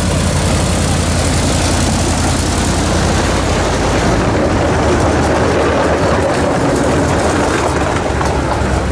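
Miniature park train's locomotive engine running steadily as the train pulls its riding cars along the track. About four seconds in the low engine hum gives way to a rougher rumble and rush of the cars rolling on the rails.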